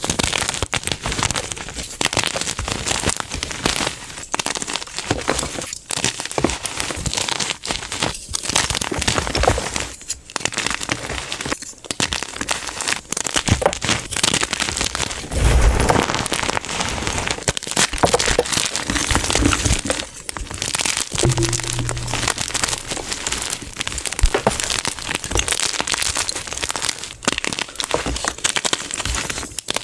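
Blocks of gym chalk being crushed: a dense, continuous run of crunching and crumbling, with a few brief gaps and one heavier low thump about halfway through.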